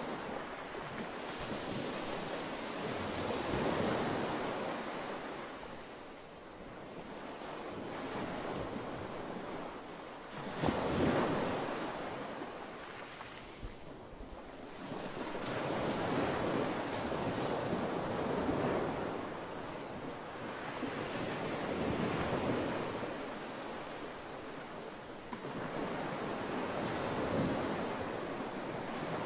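Gentle ocean surf on a beach: waves breaking and washing in, the noise swelling and fading every few seconds, with one stronger break about eleven seconds in.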